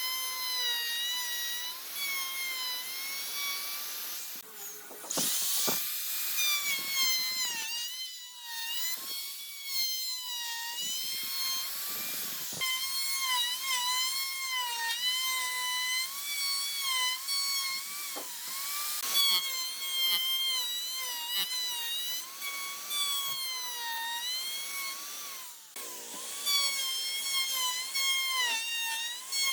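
High-pitched whine of a small electric power tool, such as a drill or router, running on wood. Its pitch dips and recovers again and again as it is loaded, with a few brief breaks.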